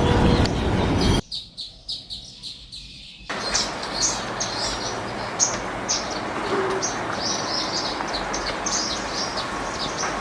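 Backyard birds chirping repeatedly in short, high-pitched calls. A loud low rumble of background noise fills the first second and cuts off suddenly, and a steady quieter hum returns about three seconds in.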